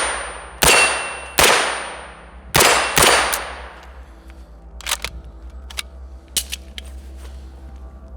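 Suppressed semi-automatic rifle fire in .223: four sharp shots in the first three seconds, each trailing off over about a second, followed by a few light clicks and ticks.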